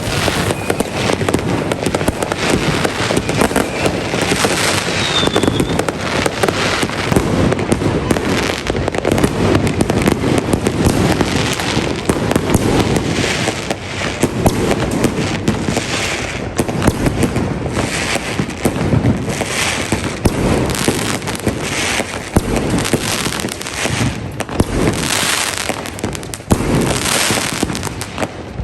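Fireworks going off continuously, a dense rattle of many overlapping bangs and crackles with no pause.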